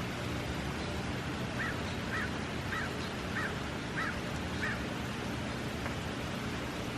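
An animal calls six times in a quick, even series, a little under two calls a second, over a steady background hiss.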